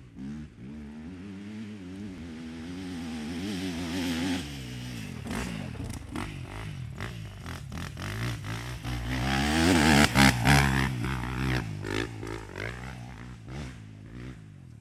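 KTM 250 motocross bike engine revving up and down as it is ridden hard around the track, getting louder as it comes close by about ten seconds in, then fading as it rides away.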